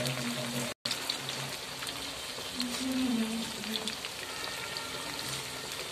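Chicken 65 pieces deep-frying in hot oil in a wok: a steady crackling sizzle of many small pops. The sound cuts out for an instant just under a second in.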